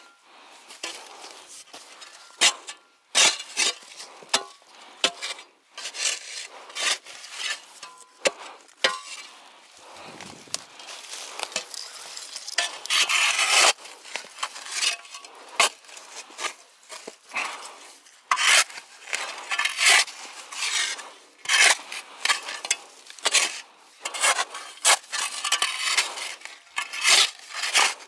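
Small hand pick chopping and scraping into stony soil under a boulder: irregular metal strikes on dirt and stones, one or two a second, with a longer scrape about halfway through.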